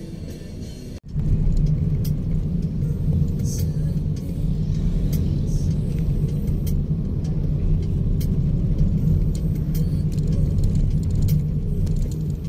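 Steady low rumble of a car ride heard from inside the cabin, engine and road noise. It starts abruptly about a second in, after a brief cut from quieter street sound.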